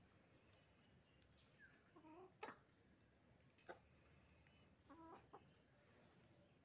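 Chickens clucking faintly: two short clucks, one about two seconds in and one about five seconds in, with a couple of sharp clicks between them.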